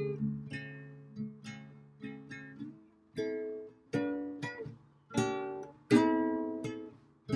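Acoustic guitar playing alone: plucked notes and chords that ring out and fade, with harder strummed chords from about three seconds in.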